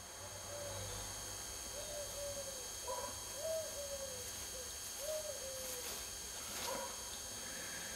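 A bird repeating low hooting coos, about four calls a second and a half apart, each rising briefly then falling away. A sharp click near the end.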